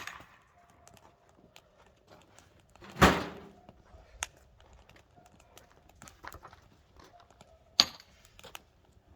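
A few sharp knocks at uneven intervals, the loudest about three seconds in with a short ringing tail and another near the end, with faint small clicks and taps between them.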